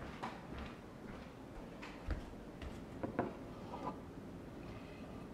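A few light clicks and soft knocks of objects being handled, with the clearest knocks about two and three seconds in.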